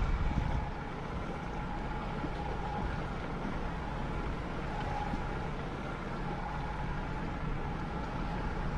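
Outboard motor of a rigid inflatable boat running steadily at low speed, a constant low rumble with a faint steady whine above it.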